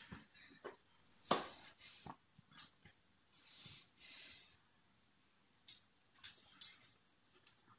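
Scattered sharp slaps of hands striking and brushing against each other and the body while signing, with a soft breathy hiss in the middle.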